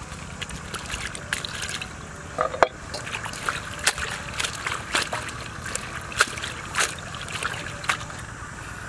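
A cleaver cutting banana flower over a steel bowl of water, then hands swishing and sloshing the slices in the water: a run of sharp clicks and small splashes.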